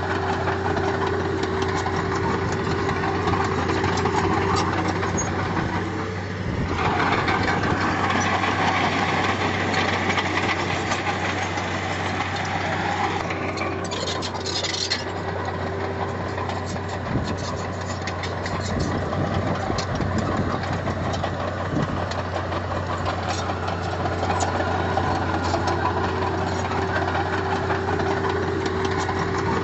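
Heavy-equipment diesel engine running steadily with a low hum. From about six to thirteen seconds in it gets louder and noisier, and a brief high hiss comes around fourteen seconds in.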